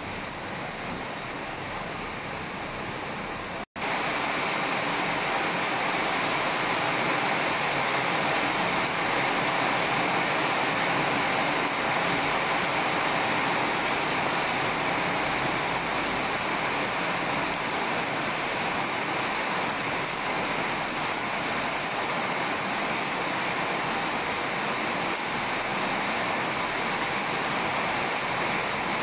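Steady rushing noise of heavy rain and flowing floodwater. It breaks off for an instant about four seconds in and comes back louder.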